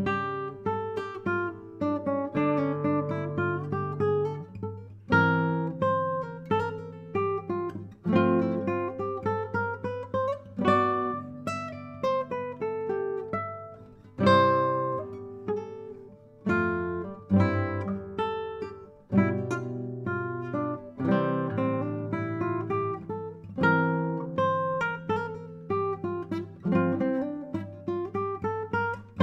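Classical nylon-string guitar played solo, fingerpicked: quick runs of rising broken-chord notes over held bass notes, each note ringing and dying away.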